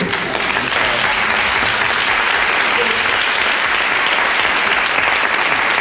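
Live audience applauding, a steady even clapping.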